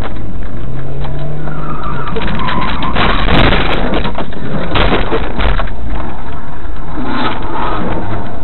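Engine and road noise inside a moving car, picked up by a dashcam's microphone. There is a louder rushing burst about three seconds in and another about five seconds in.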